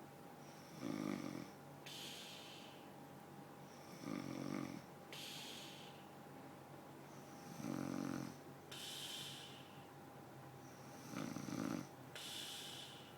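A person snoring in deep sleep: four loud snores about three and a half seconds apart, each followed by a softer, hissing breath out.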